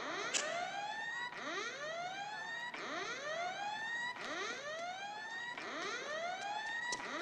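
A siren whooping: a rising sweep that climbs and restarts about every second and a half, five times over.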